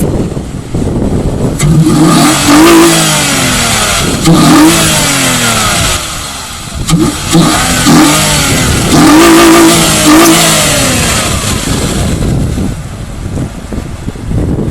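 2006 Mazda 6's 3.0-litre V6 with a BCP cold air intake, revved hard several times in quick bursts. The pitch rises and drops back each time, and the last rev is held longer, about nine seconds in. It is heard from outside the car.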